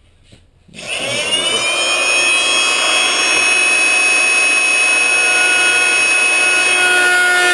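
Oscillating multi-tool with a metal-cutting blade switching on under a second in, coming up to speed, then running loud and steady with a high whine as it plunge-cuts into a sheet of aluminum.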